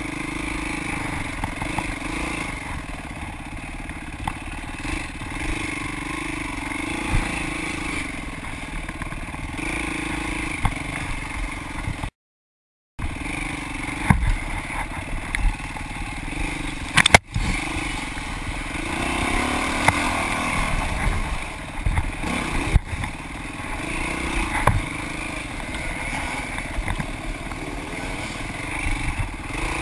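Dirt bike engine running and revving up and down under the rider's throttle on a rough trail, with rattles from the bike over bumps and one sharp knock a little past halfway. The sound cuts out completely for about a second just before halfway.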